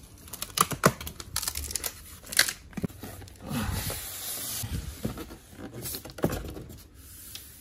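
Cardboard box being opened by hand: flaps and packing tape pulled apart, with cardboard scraping and knocking and the polystyrene foam insert rubbing. A longer tearing rasp comes about halfway through.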